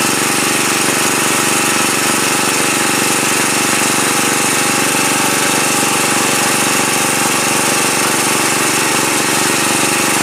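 Small engine running steadily at one constant speed, a loud even drone with a fast firing rhythm.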